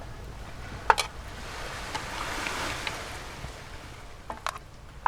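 Sea waves washing onto a sandy beach, one swelling and fading about two to three seconds in, with a steady low rumble underneath. A few sharp clicks, in pairs about one second and four and a half seconds in.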